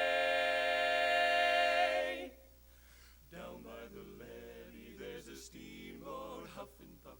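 Barbershop quartet singing a cappella: four voices hold a loud chord that is released about two seconds in. After a short pause the voices go on much more softly.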